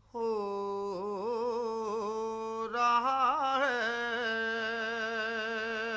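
A man's voice singing a devotional naat unaccompanied, drawing out a long held melismatic phrase with vibrato and no clear words. About three seconds in it grows louder and wavers more before settling on a steady held note. A faint steady low hum lies underneath.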